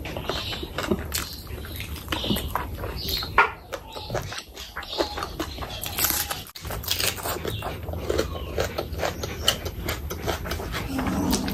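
Close-miked eating sounds from someone eating curry and rice by hand: irregular chewing and lip smacks.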